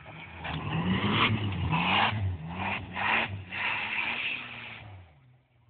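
Nissan Skyline's engine revving up hard several times, with tyres spinning and sliding on dusty paddock ground. The sound fades away about five seconds in.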